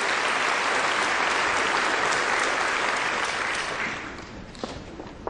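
Theatre audience applauding, dying away about four seconds in; then a few sharp taps of dancers' steps on the stage floor.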